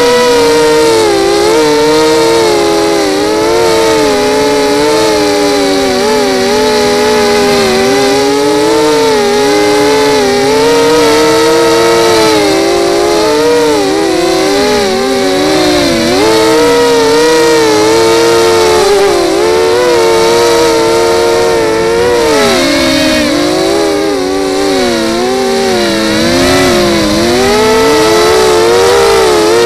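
Brushless motors and propellers of a Lumenier 250 racing quadcopter whining loudly, picked up by the camera on the quad itself. The pitch rises and falls continually with throttle as it flies.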